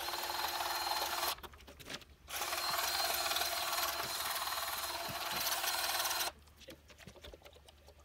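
Battery-powered grease gun running as it pumps grease into the skid loader's pivot fittings: a steady run of about a second, then after a short pause a longer run of about four seconds, before it stops.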